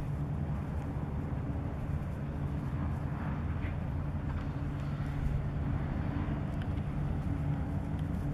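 Steady low drone of a ship's diesel engine, with a low rumble underneath.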